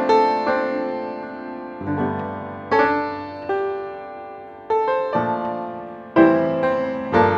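Background music of slow struck chords, each rung and left to fade before the next.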